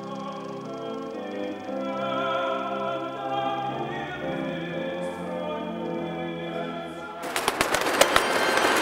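Dramatic trailer music of held choral chords. About seven seconds in, a sudden louder burst of noise breaks in, crackling with rapid sharp hits.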